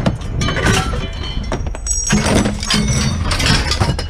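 A run of clattering knocks and clinks over a steady low rumble, with a brief high ringing tone about halfway through.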